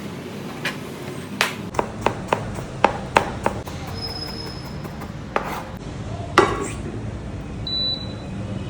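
Knife chopping food on a cutting board: a run of sharp, irregular knocks, thickest in the first few seconds and sparser after, over a steady low hum.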